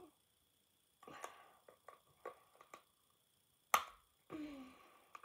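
Breathy sniffing or breathing sounds and a short falling hum from a person holding a small item to her face. Several small clicks come from the item, with one sharp, loud click about three-quarters of the way through.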